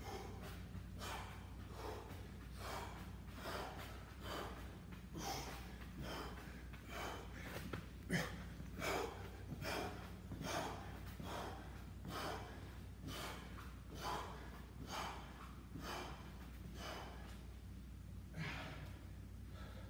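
A man breathing hard from exertion, with quick, noisy breaths in and out at about one to two a second, over a steady low hum. A single sharp thump about eight seconds in is the loudest sound.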